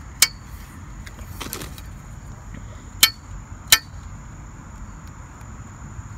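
Metal frame tubes and bracket of a golf practice net clicking against each other as they are handled and pushed together: three sharp clinks, one just after the start and two close together about three seconds in.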